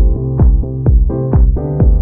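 Electronic dance background music with a steady kick-drum beat, a little over two beats a second, under sustained synthesizer chords.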